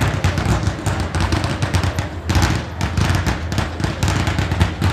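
Colored-smoke fireworks burning, making dense rapid crackling and popping over a steady low rumble.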